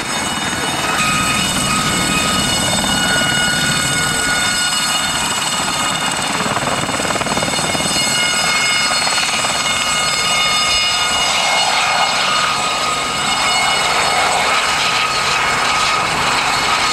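Aérospatiale Gazelle helicopter lifting off and hovering low, its Astazou turbine and fenestron ducted tail rotor giving a steady high-pitched whine over the main rotor's noise.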